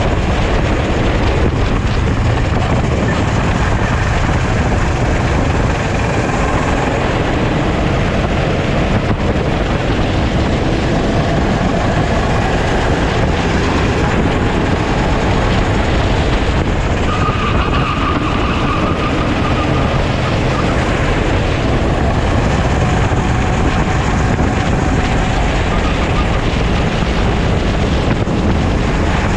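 Sodi rental kart engine running at racing speed, heard onboard under loud, steady wind buffeting on the camera microphone, its note wavering up and down in pitch.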